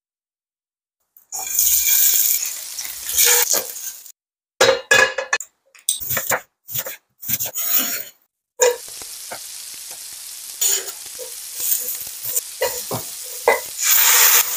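Food sizzling in hot oil in a nonstick frying pan: several short clips cut one after another, then a steadier sizzle of shimeji mushrooms being stir-fried, with spatula clicks and scrapes against the pan. Silent for about the first second.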